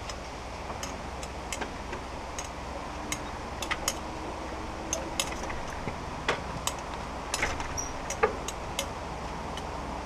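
Light clicks and ticks at irregular intervals, a couple of dozen in all and loudest in the second half, over a steady low hum.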